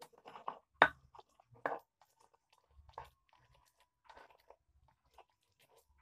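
Sambal being mashed and mixed by hand in a stone mortar: irregular wet squelching and crunching, with a couple of sharper knocks against the stone, the loudest about a second in.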